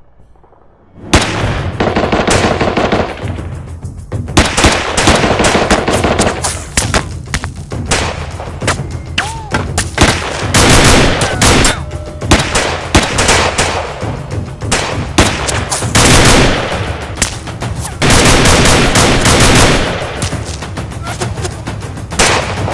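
Machine-gun fire in rapid bursts, added as a sound effect, starting about a second in and going on with short breaks.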